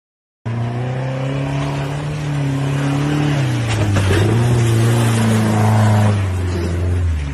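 A car engine held at high revs under hard throttle while the car is driven through deep mud, starting abruptly; the engine note sags about three and a half seconds in, with a short knock, then climbs back and holds.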